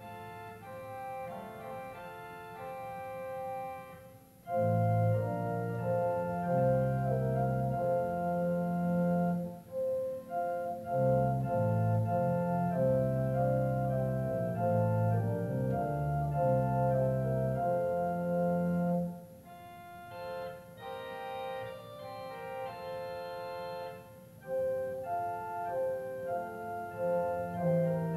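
Church organ playing a fanfare in held chords. It begins with a softer, higher passage, swells to full chords over a deep pedal bass about four seconds in, thins to a lighter high passage about two-thirds through, and returns to full organ near the end.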